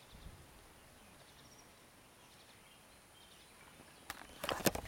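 Quiet open-air ambience with a few faint, short bird chirps. Near the end there is a cluster of sharp clicks and knocks: handling noise on the camera's microphone as it is swung down.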